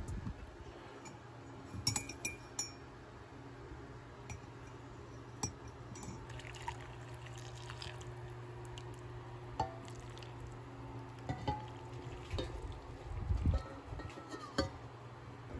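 Hot water poured from a kettle into a ceramic mug over a stainless mesh tea infuser ball, with light clinks of metal and ceramic, over a low steady hum.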